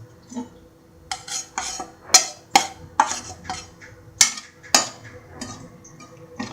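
A spoon scraping and knocking against a kadai as spice powders are stirred into the oil, a run of sharp scrapes about two a second.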